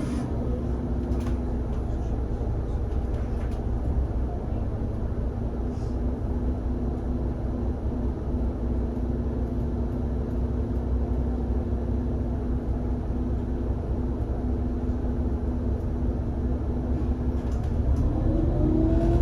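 IVECO Cursor 8 six-cylinder twin-turbo CNG engine of an Irisbus Citelis 18 articulated bus running steadily with a low rumble. Near the end it rises in pitch and grows louder as the bus accelerates.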